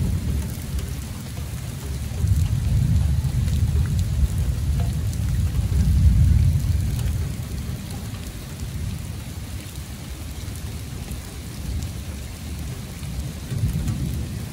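Steady rain falling on wet ground and puddles, with a low rumble of thunder that swells and fades, loudest about six seconds in.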